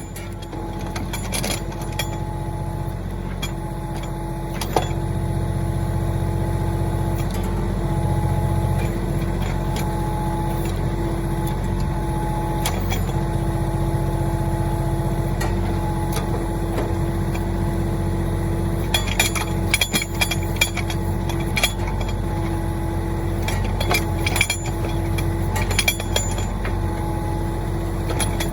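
Mahindra 1626 tractor's diesel engine running steadily under backhoe work, with a steady whine over the engine. Scattered sharp knocks and clanks come through, several in quick succession about two-thirds of the way through and again a little later.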